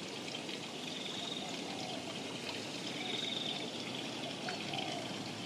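Steady, even rush of water, like rain or a running tap, with no breaks.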